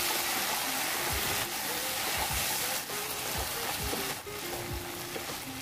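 Sliced taro frying and sizzling in a nonstick kadai while a wooden spatula stirs and scrapes through it, with dull knocks now and then. Background music with a simple melody plays alongside.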